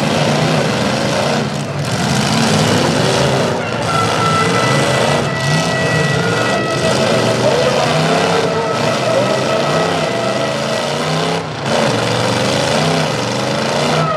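Demolition derby pickup trucks' engines revving up and down unevenly over a loud arena din. A steady tone joins about four seconds in.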